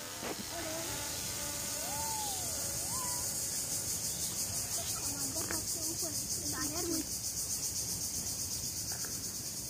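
Steady high-pitched insect chirring with a fast, even pulse, with a few faint voices from a distance in the middle.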